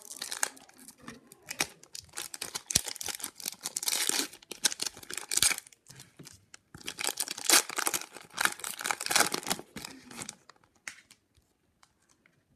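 Wrapper of an Upper Deck hockey card pack being torn open and crinkled, a dense crackling for about ten seconds that then dies down to a few faint ticks.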